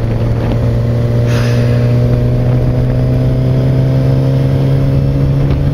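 Suzuki GSX-R600 inline-four engine running at a steady cruise while riding, its pitch creeping slightly upward, under a constant rush of wind. A brief hiss comes and goes between one and two seconds in.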